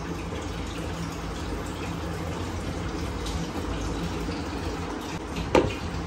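Wet handling of raw whole chicken as salt is rubbed into it in a large pot, over a steady low hum. A single sharp knock comes near the end.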